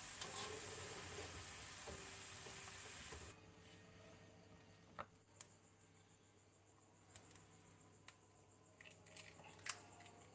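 Shredded cabbage sizzling in hot oil in a wok, with spatulas stirring it, for about the first three seconds. Then, after a cut, a few light taps and a sharp crack near the end as an egg is struck with the edge of a cleaver and broken over a bowl.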